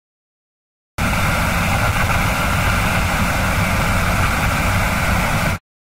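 Steady engine and road noise of a moving motor vehicle, a constant rumble with hiss, starting abruptly about a second in and cutting off suddenly near the end.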